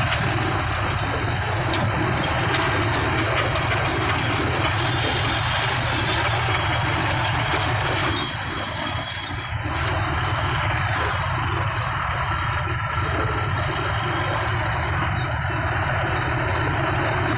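Motorbike engine running steadily while riding slowly through dense motorbike and truck traffic: a continuous rumble of engines and road noise. A thin high tone sounds briefly just past the middle.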